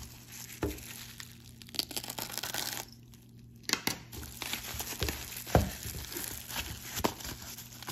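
Plastic bubble wrap crinkling and crackling as it is pulled off a small cardboard box by hand. The crinkling has many sharp clicks in it and pauses briefly about three seconds in.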